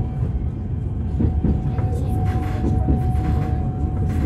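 Inside an Alstom Citadis Dualis tram-train running on the line: a steady low rumble from the wheels and running gear, with a steady whine that grows a little stronger about two seconds in. A few short knocks from the track come through it.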